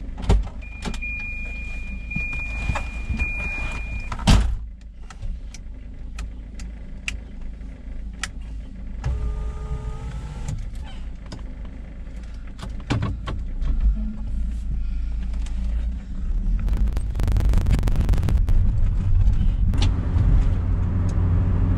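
Car running, heard from inside the cabin, with a high steady electronic chime sounding for the first few seconds. The running sound grows louder about two-thirds of the way through.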